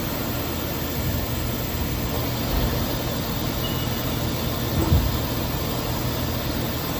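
EMCO Turn E 45 CNC lathe running, its spindle and chuck turning steadily with a low machine hum and noise. A short, louder bump comes about five seconds in.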